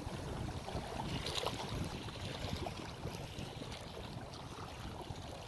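Small waves lapping and breaking on the shallow edge of a dam, with a low wind rumble.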